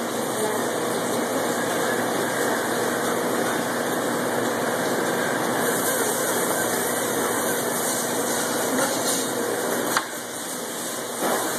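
Steady background noise of a fish-processing plant's machinery and running water, with one sharp click near the end.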